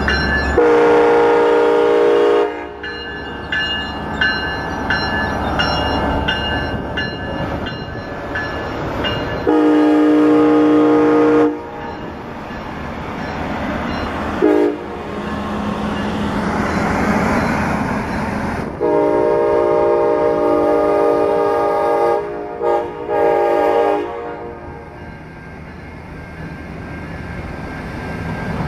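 Siemens Charger SC-44 diesel locomotive passing and blowing its horn as a chord of several notes. It gives two long blasts, a short one, then a final long one, the grade-crossing pattern. Between blasts its diesel engine runs and the train's wheels roll over the rails.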